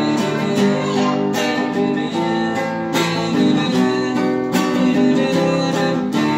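Acoustic guitar strummed in a steady rhythm, an instrumental passage between sung lines.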